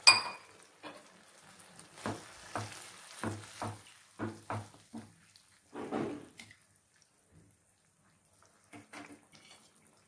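Wooden spatula stirring watery chicken curry gravy in a nonstick pan: a sharp knock at the very start, then a run of short scrapes and knocks against the pan with the liquid sloshing, thinning out to a few light sounds near the end.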